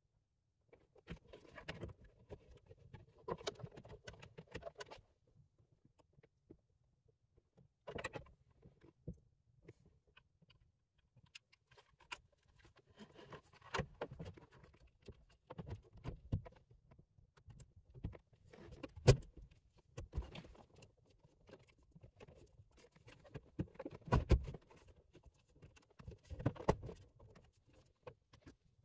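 Scattered clicks, knocks and rustling as a car stereo head unit is handled and pushed into its dashboard slot, its metal housing and the plastic dash trim knocking together. The sharpest click comes about two-thirds of the way through.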